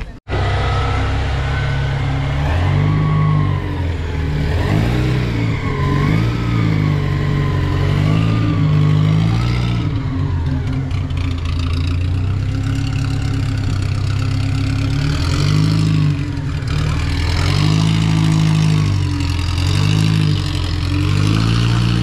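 Vintage car engine revving again and again, its pitch rising and falling with each throttle blip and settling back toward idle in between.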